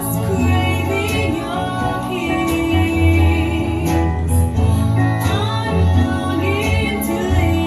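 A song with a woman singing over plucked guitar and a strong bass line, played back through Wharfedale Elysian 4 floorstanding loudspeakers driven by a McIntosh MA12000 amplifier.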